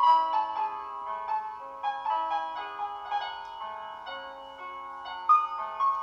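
Background piano music: a gentle melody of single struck notes over lower held notes.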